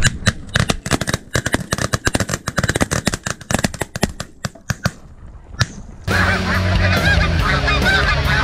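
A large flock of snow geese calling, a dense overlapping chatter of short honks and yelps. About six seconds in it grows louder, with a low rumble underneath.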